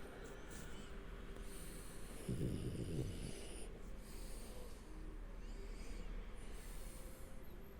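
French bulldog asleep on its back, snoring and snuffling in noisy breaths, with one louder rattling snore a little over two seconds in.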